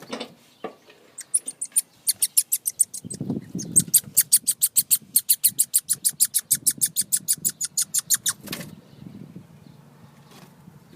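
Young red squirrel chattering: a fast, even rattle of sharp, high chirps, about six a second, that starts about a second in and stops abruptly near the end.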